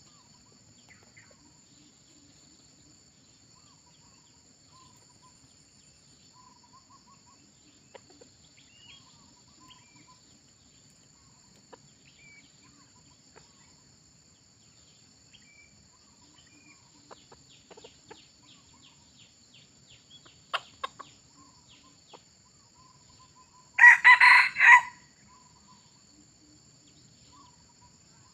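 Red junglefowl rooster crowing once near the end, a short crow lasting about a second, with a couple of short sharp calls a few seconds before it. A steady high insect buzz runs underneath.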